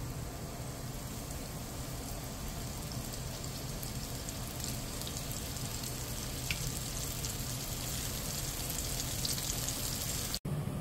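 Flour-dredged chicken tenders frying in hot oil in a stainless steel pan: a steady sizzle with scattered small pops and crackles.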